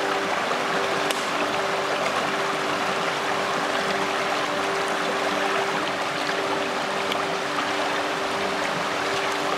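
Shallow rocky stream running steadily, a continuous rush of water with a steady low hum underneath.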